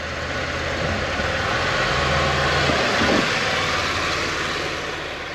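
Buick LaCrosse engine and exhaust running, with a rough, noisy exhaust note that swells and then fades. The exhaust leak is still there despite a clamp-and-cement patch; the owner thinks the flex pipe should have been replaced.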